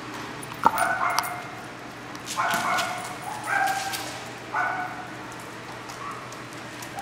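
One sharp knock, then a dog barks four times, short barks spread over about four seconds. The dog is an Australian Cattle Dog.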